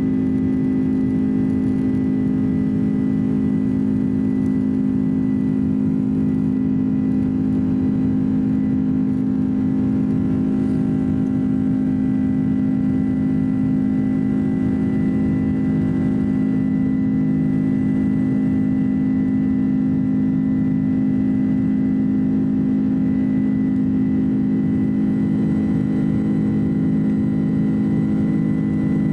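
Cabin sound of a Boeing 767-300 climbing out after takeoff: its General Electric CF6 turbofan engines drone steadily, a strong low hum with a thin high whine above it and the rush of air around the fuselage.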